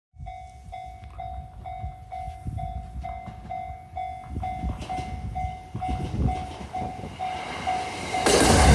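Japanese level-crossing warning bell ringing about twice a second over a low, uneven rumble. Near the end a train arrives with a loud, sudden rise in noise that covers the bell.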